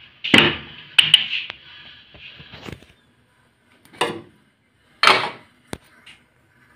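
Several sharp clatters and knocks of kitchen containers and utensils being handled as the ghee is fetched. A faint steady hiss stops about three seconds in.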